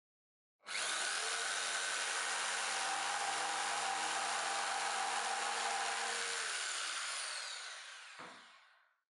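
Jigsaw cutting through a pine board along a guide fence: the motor starts sharply about half a second in and saws steadily for about six seconds. Then it is released and spins down with a falling whine, with a single knock near the end.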